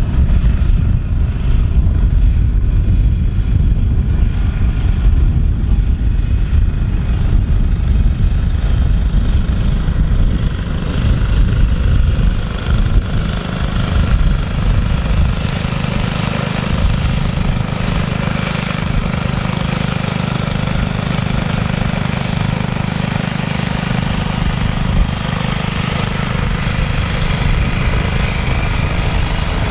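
Small engines of walk-behind greens mowers running steadily. A heavy, uneven low rumble fills the first half and gives way to a steadier engine hum from about halfway through.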